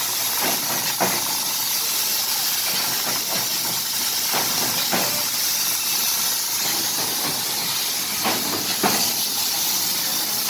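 Three-side trimming machine running with a steady hiss and a few scattered clicks and knocks.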